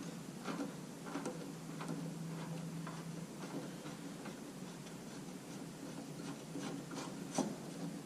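Hand screwdriver driving a screw into a Jeep YJ headlight trim piece: irregular small clicks and scrapes of metal on metal and plastic, with a sharper click near the end.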